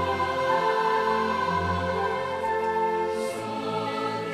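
Music: an orchestral piece with a choir singing long held notes.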